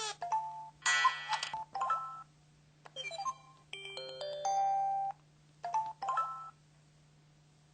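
A Samsung SPH-V5100 mobile phone playing its built-in sound effects one after another: about seven short electronic chimes and bleeps, each under a second except one held chord near the middle, separated by short gaps.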